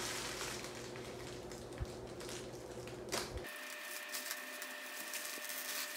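Scissors snipping through thin plastic wrapping, with the plastic crinkling and rustling as it is handled. There are small clicks of the blades, one sharper about two seconds in.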